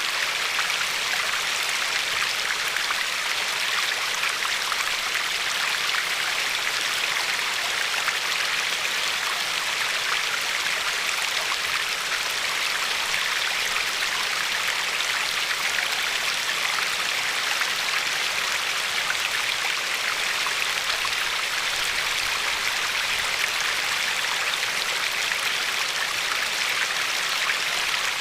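Glacier-fed river flowing and lapping along a pebbly shore: a steady, even rush of water.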